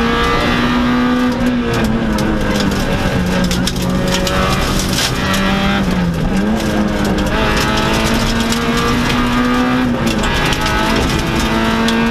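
Peugeot 106 N2 rally car engine heard from inside the cabin, running hard at high revs. The pitch dips and climbs again about a second and a half, six and ten seconds in, the deepest dip near six seconds. Road noise runs underneath.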